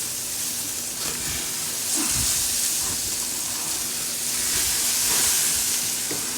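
Steak sizzling and hissing on a hot grill just after Worcestershire sauce is splashed on it. The hiss swells about two seconds in and again about five seconds in.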